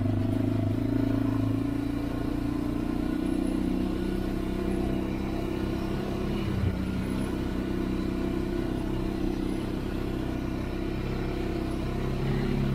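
Honda 400EX ATV's single-cylinder four-stroke engine running steadily under way on a dirt trail, with a brief dip in engine speed about halfway through.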